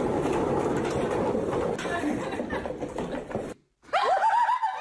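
Busy school-hallway din of many overlapping voices that cuts off abruptly. After a moment's silence, a single high voice breaks into a run of short rising cries.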